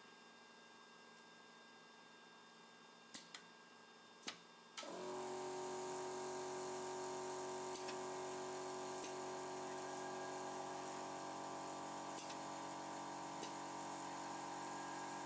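Mechanism of an automated solar-panel assembly machine at its stringing dispenser: a few sharp clicks, then about five seconds in a steady machine hum with several held tones starts abruptly and runs on, with occasional faint ticks.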